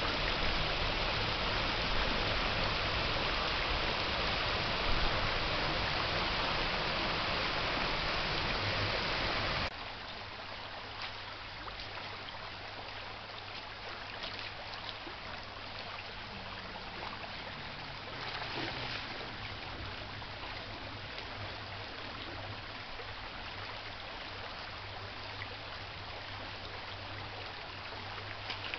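Stream water rushing and splashing over rocks, loud and close for about the first ten seconds, then cutting suddenly to a quieter, steady flow with a few faint knocks.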